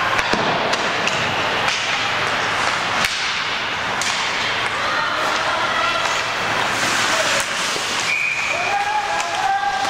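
Ice hockey game in a rink: sharp cracks and thuds of sticks and puck against the boards, scattered through a steady wash of arena noise, with short calls from players or spectators in the second half.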